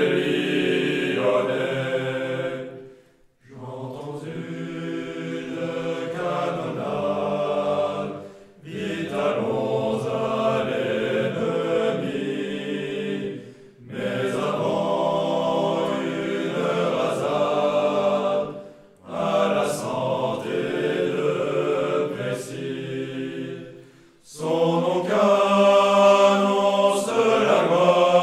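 A choir singing a French military song in phrases of about five seconds, each ending in a brief pause for breath.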